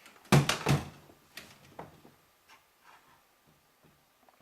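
Two loud knocks close together, then a few faint clicks and taps, as the opened boombox's plastic panel and casing are handled.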